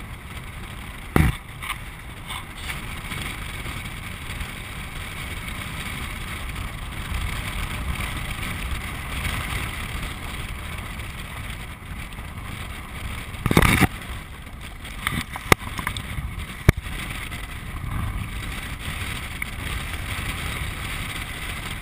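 Land yacht sailing across a dry lake bed: a steady rush of wind and rolling wheel noise, broken by a few sharp knocks, about a second in, a longer one near the middle, and two shorter ones soon after.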